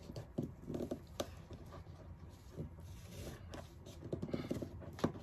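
Long-nose pliers twisting and prying webbing out of a jammed, over-wound ratchet strap spool: faint rustling of the strap with scattered light clicks and taps.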